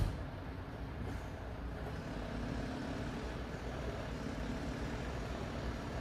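Mercedes-Benz Atego 1524 skip-loader truck's diesel engine running steadily at low speed as it drives slowly along a dirt track, heard at a distance as a low rumble.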